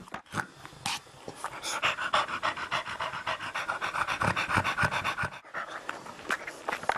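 Adult French bulldog panting rapidly in quick, even breaths, with a short break about five seconds in.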